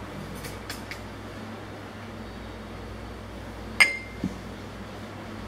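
Restaurant dining-room background with a steady hum, a few faint clicks, and one sharp clink of glass or china tableware with a brief ring about four seconds in, followed by a short dull knock.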